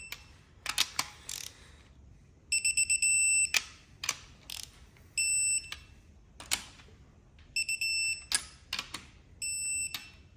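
Digital torque wrench beeping as it tightens N54 head studs: four times a quick run of high beeps turns into a steady tone as the set torque is reached, each followed by a few sharp clicks from the wrench.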